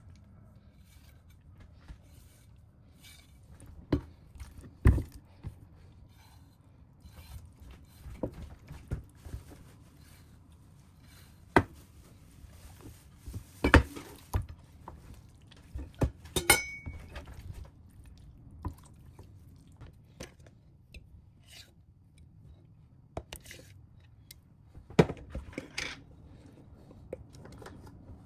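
Irregular clinks, knocks and scrapes of kitchen utensils and dishes as food is prepared. The sharpest knocks come about 5, 14 and 25 seconds in, over a low background hum.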